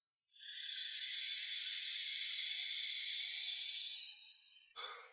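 A steady high hiss that starts a moment in, with a short, fuller rush of noise just before it cuts off near the end.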